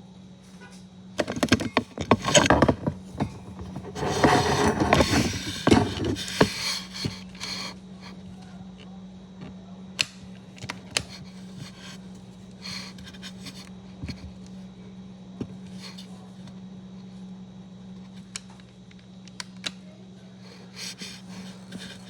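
Home blood pressure monitor in use: a steady motor hum throughout, with loud rustling and scraping handling noise in the first several seconds, then scattered small clicks.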